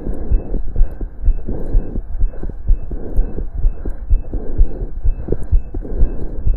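Heart sounds picked up through a stethoscope on the chest during exercise: a fast heartbeat, about two beats a second, with a rushing noise between the beats.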